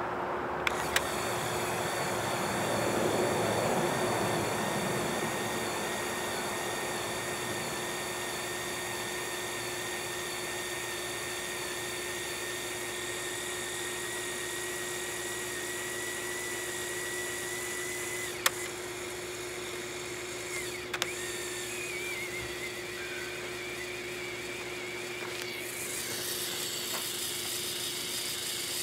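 Lego Technic 8258 crane truck's battery-powered electric motor running with a steady whine, on dying batteries. A few sharp clicks come from the controls, two about a second in and two more about two-thirds of the way through.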